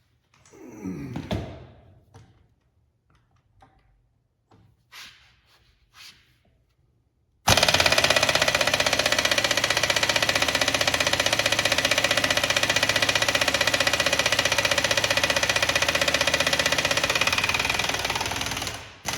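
A few light tool clinks, then, about seven seconds in, an impact wrench starts up suddenly and hammers steadily for about eleven seconds on a tight bolt of a Dana 70 axle, fading off just before the end.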